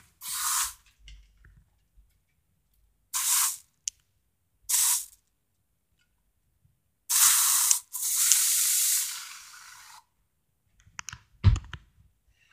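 Air freshener spray hissing out in five bursts: three short sprays, then a longer one and a steady spray of about two seconds. A short thump comes near the end.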